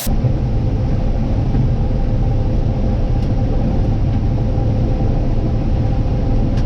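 Heavy farm machine engine running steadily: a deep, even rumble with a faint steady hum above it.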